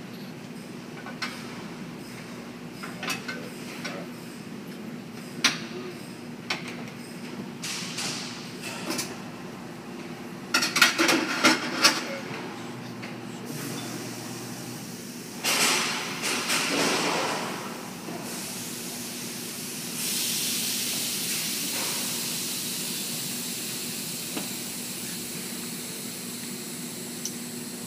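Motorcycle tire being levered off a spoked wheel rim on a tire-changing machine: scattered clicks and knocks of a tire iron on the rim, a quick run of loud metal clanks about eleven seconds in, and the rubber scraping off. About two-thirds through, a steady hiss starts and slowly fades.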